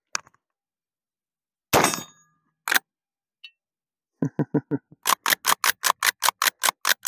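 A .25-20 Winchester 1892 lever-action rifle fired about two seconds in: a sharp report with a short ringing tail, then a second sharp crack about a second later. In the last three seconds comes a fast, even run of clicks, about five a second.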